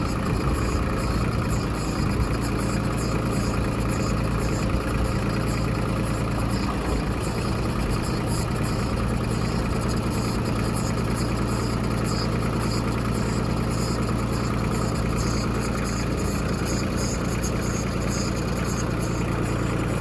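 Ford 1720 compact tractor's three-cylinder diesel engine running steadily, powering the Woods 750 backhoe's hydraulics.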